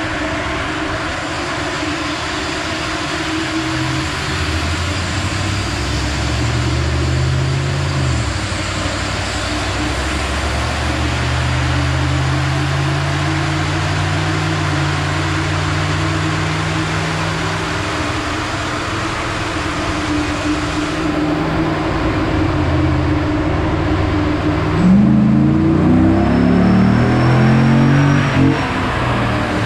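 Ram pickup's 5.7-litre Hemi V8 running on a chassis dyno to bring the coolant back up to about 180 degrees, its pitch wandering up and down, then climbing in several rises near the end. A steady rushing noise runs underneath.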